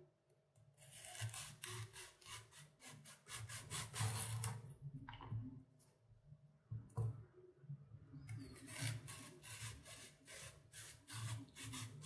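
Small Victorinox serrated tomato knife sawing through an onion on a wooden cutting board: faint rasping strokes in quick runs, pausing briefly between slices.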